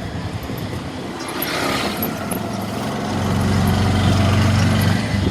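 A motor vehicle's engine running close by, fading a little then swelling louder about three seconds in, and cutting off suddenly at the end.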